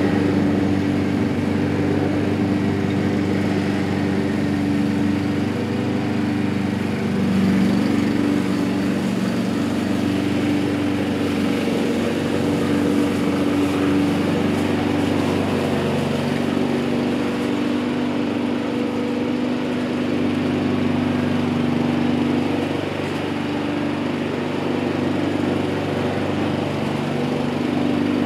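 Honda self-propelled walk-behind lawn mower's small engine running steadily while mowing, a continuous hum with small shifts in pitch and loudness as the mower moves about.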